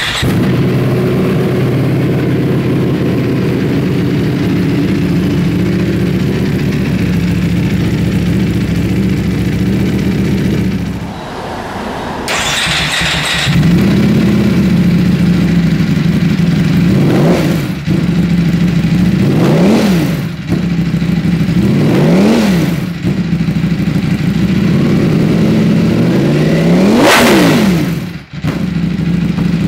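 Ducati Panigale V4 S's 1103 cc V4 engine idling steadily. After a short break it idles again, with four sharp throttle blips in the second half, the last one revved highest near the end.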